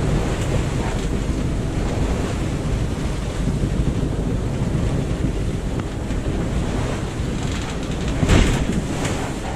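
Wind buffeting the microphone and water rushing against the hull of a sailboat under sail in choppy seas, with a louder surge of water about eight seconds in.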